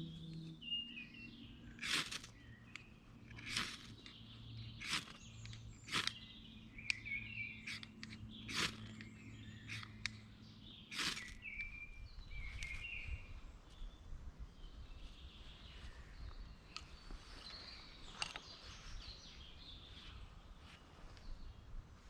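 Woodland birds chirping, broken by sharp knocks or cracks, about seven of them at irregular intervals over the first eleven seconds.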